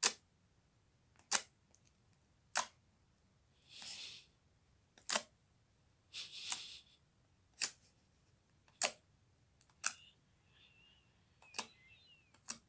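Fingertips poking into glossy slime that has an oily liquid coat on top, making sharp little clicks ('çıt çıt') about once a second as the dents pop. Two longer crackling squelches come about a third and halfway through.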